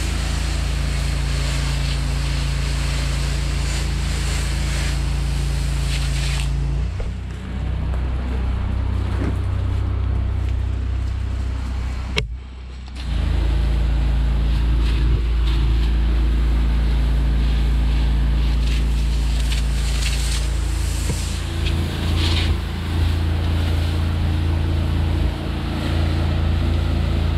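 Gas pressure washer engine, a Honda GX690 V-twin, running steadily at full throttle with the hiss of the wand spraying soap mix drawn through a downstream injector. The sound cuts out briefly about twelve seconds in.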